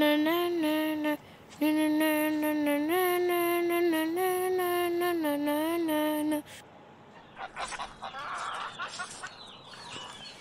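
A boy humming a slow old Tamil tune in long held notes, with a short breath about a second in. He stops about six seconds in, leaving a quieter background with faint bird-like chirps.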